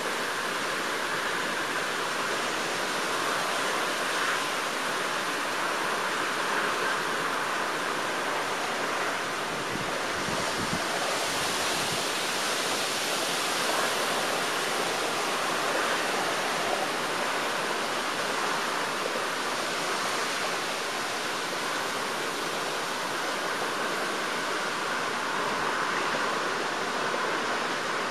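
Steady rush of wind through a stretch of trees, an even hiss without breaks or gusts.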